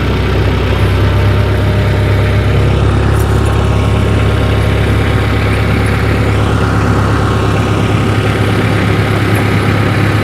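Tractor engine running steadily at low speed as the tractor creeps forward to draw a snow chain over the tyre.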